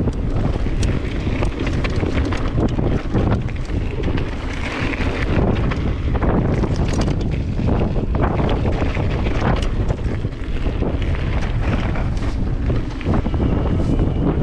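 Wind buffeting the microphone as an electric mountain bike rolls along a dirt singletrack, with the rumble of the tyres and frequent short clicks and rattles from the bike going over bumps.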